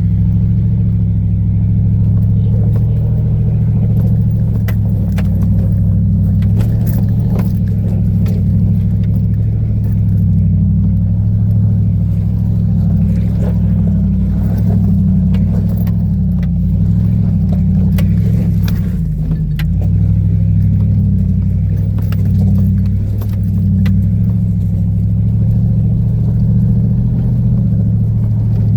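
Ford F-150 pickup engine pulling steadily under load in four-high as the truck climbs a steep, rutted dirt hill, with scattered clicks and rattles from the truck over the rough ground.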